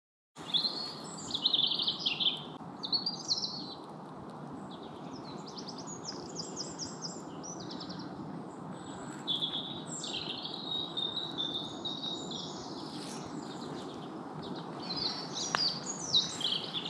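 Woodland dawn chorus: several small songbirds chirping and trilling, with quick repeated trill notes, over a steady background hiss.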